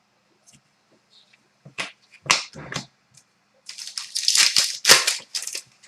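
Trading cards and their pack wrapper being handled: a few soft rustles, then a run of quick crinkling, sliding strokes in the second half.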